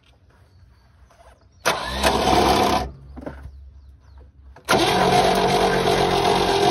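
The 1971 International truck's engine is cranked over by its starter with the valve cover off, to check valve movement. It gets a short burst of about a second, then, about two seconds later, a longer steady spell of cranking.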